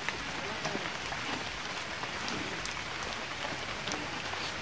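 Steady soft outdoor hiss with faint scattered ticks and light taps.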